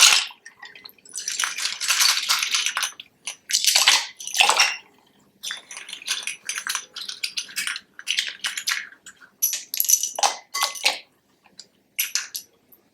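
Handfuls of plastic keycaps clattering as they are dropped into a bowl of water dissolving denture-cleanser tablets, in several bursts of many quick clicks with short pauses between.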